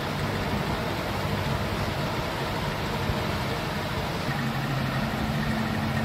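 A steady low hum with a continuous hiss: background machine noise, without distinct events.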